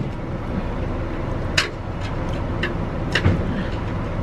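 Steady low rumble of a motor vehicle, with a few short sharp clicks or knocks, two of them about a second and a half and three seconds in.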